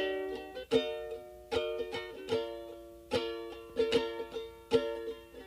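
Music: a plucked string instrument playing chords, each struck chord ringing and fading before the next, roughly one every three-quarters of a second.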